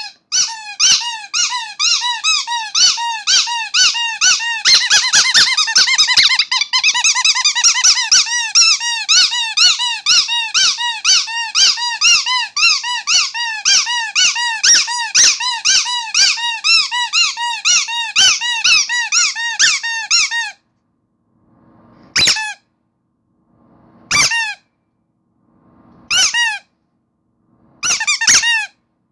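Rubber starfish squeaky toy squeezed over and over, rapid squeaks about three a second. About two-thirds of the way in it slows to single squeaks roughly two seconds apart, each with a faint rustle just before it.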